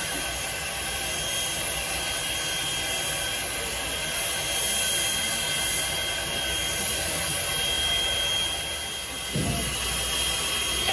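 Steam locomotive Canadian National no. 89, a 2-6-0, standing at a platform with steam up: a steady, loud hiss of escaping steam with a thin high tone running through it. A low rumble joins near the end.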